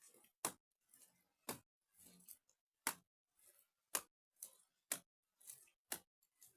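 Hands slapping wet mud into the cracks of a mud wall: a sharp slap about once a second, with softer rubbing sounds between.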